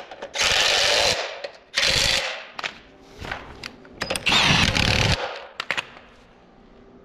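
Pneumatic air tool running in three loud bursts of about half a second to a second each on car suspension hardware, with a few short clicks and knocks between the bursts.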